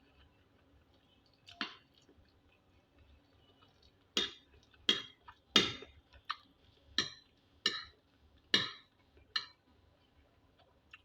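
Cutlery clinking and scraping on a plate while eating stew and rice: one stroke, then a run of about eight, roughly one every 0.7 seconds.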